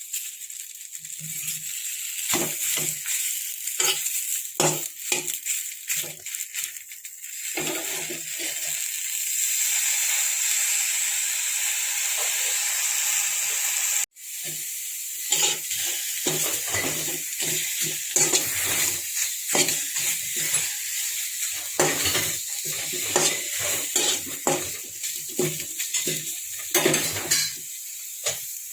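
Washed Indian borage, betel and holy basil leaves sizzling as they heat in a pan on the stove, with frequent knocks and scrapes as they are turned against the pan. The hiss is steadiest in the middle and cuts out for an instant about halfway.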